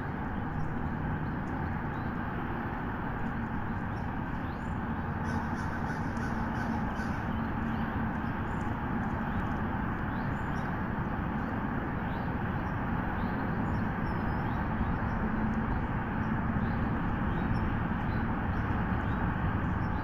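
Steady outdoor background noise on a bald eagle nest-cam microphone, with faint, brief bird calls scattered through it.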